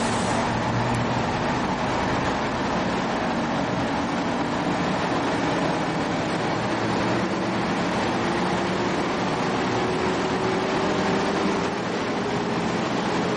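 Diesel engine under electronic governor control speeding up slowly and smoothly from idle to its rated speed of about 1500 rpm, its pitch rising gradually throughout. The governor's speed ramping is set to its slowest.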